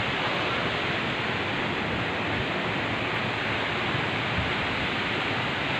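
Steady, even rushing noise with no distinct events: a constant hiss like running water or wind.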